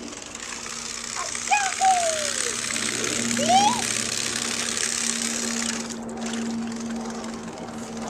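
A steady motor-like drone with a hiss underneath, its hum strongest in the middle. A few short calls glide up and down about one and a half and three and a half seconds in.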